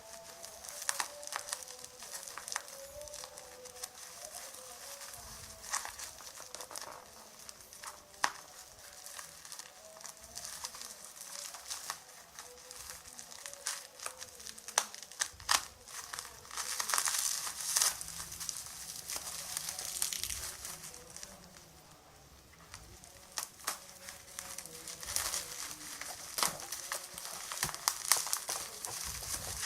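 Phone packaging being handled: crinkling plastic wrap and rustling, with many sharp clicks and taps, and longer stretches of rustling in the second half.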